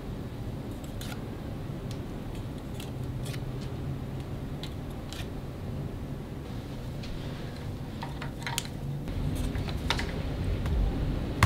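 Scattered small clicks and taps of wooden clothespins being handled and clipped onto a string, more of them near the end, over a low steady hum.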